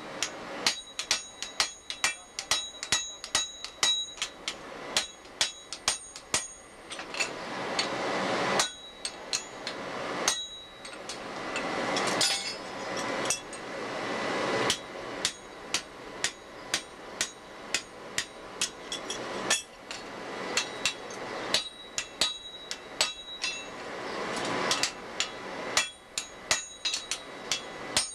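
Blacksmiths hand-forging hot iron on an anvil: rapid sledgehammer blows from the strikers alternate with the smith's hammer, each strike ringing metallically. The hammering pauses several times while a rushing noise builds up and then cuts off.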